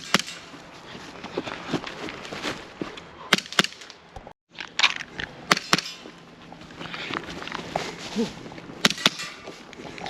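Gas blowback airsoft pistol fired in quick pairs of sharp shots, three pairs in all, with footsteps between them.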